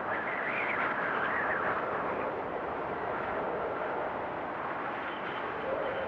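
Strong blizzard wind blowing, a steady rush with a higher wavering whistle over the first two seconds and a lower wavering tone coming in near the end.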